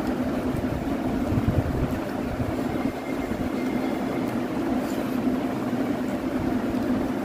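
Electric fan running: a steady hum, with low buffeting of its moving air on the microphone.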